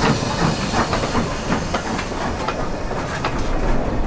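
Train running on rails: a steady running noise with irregular clicks from the wheels over the track, and a hiss.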